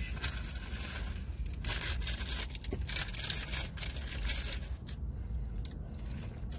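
Paper towel crinkling and rustling as it is handled around an ear of corn, easing off about five seconds in.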